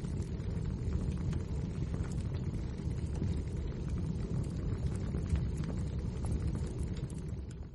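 Wood fire burning in a fireplace: crackling, with frequent small pops and snaps over a steady low rumble. The sound dips away suddenly at the very end.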